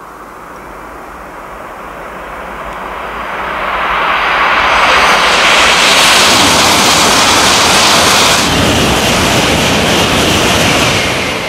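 Shinkansen bullet train passing through the station at speed on the non-stopping track: a rushing noise of air and wheels that builds over the first few seconds and then stays loud.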